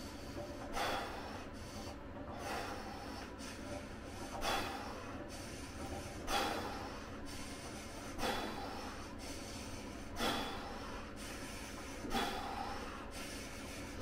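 A man breathing deeply and evenly while immersed in an ice bath, one breath about every two seconds, alternating louder and softer.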